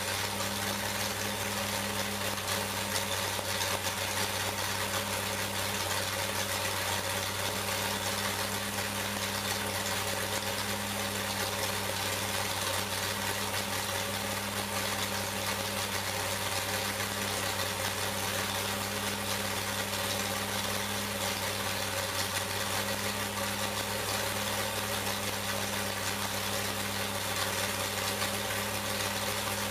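454 cubic inch small-block Chevrolet stroker V8 race engine, with a solid roller cam, idling steadily on an engine dyno.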